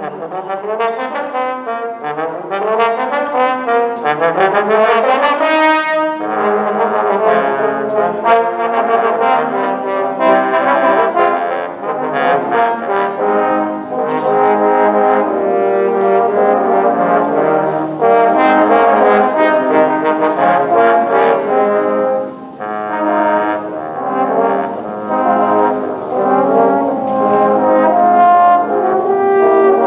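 Trombone quartet playing an arranged holiday-song medley, four trombones in harmony. It opens with repeated rising runs over the first six seconds, then moves to held chords and moving lines, with a brief break about 22 seconds in.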